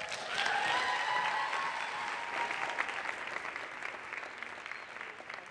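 Audience applauding: dense clapping that swells just after the start and slowly dies away.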